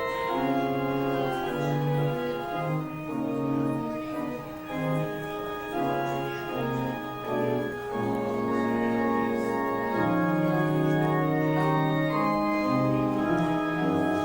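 Organ music: a piece in sustained chords with a moving line, the notes held and changing; from about ten seconds in it settles into longer, fuller held chords.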